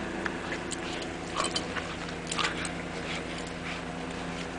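Dogs romping in deep snow, making short scuffling, crunching noises over a steady low hum.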